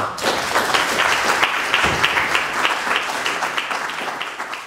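Audience applauding, a dense patter of many hands clapping that thins out and tails off near the end.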